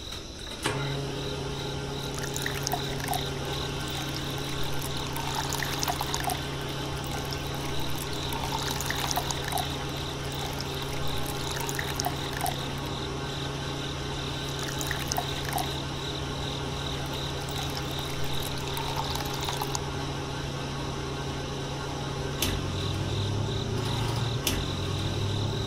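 Small DC-motor water pump switching on and running with a steady hum while water pours and trickles from it.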